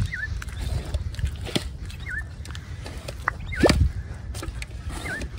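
A mud-prawn pump being worked into wet estuary mud, giving a few squelching, sucking thuds, the loudest about two-thirds of the way through. A bird repeats a short dipping chirp about every second and a half, over a low rumble.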